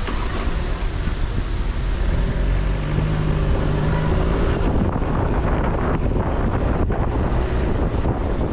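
Car driving: a steady low rumble of road and wind noise, with an engine hum rising above it from about two to four and a half seconds in.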